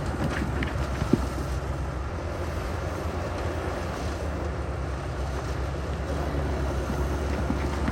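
Heavy earthmoving equipment's diesel engine running steadily with a low rumble, with a single sharp knock about a second in.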